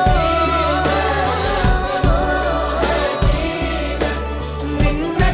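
Arabic devotional song in praise of the Prophet Muhammad, a wavering, drawn-out sung melody over a backing with low, irregular beats.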